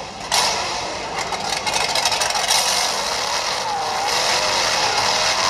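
Scale RC tubular 4x4 crawler clambering up a loose gravel slope: stones scrape and clatter under the tyres. Over it runs a revving engine sound effect.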